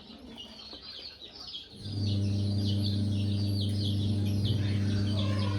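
A crowd of chicks peeping: quick, high, downward-slurred peeps packed close together. About two seconds in, a steady electric hum starts and carries on under them.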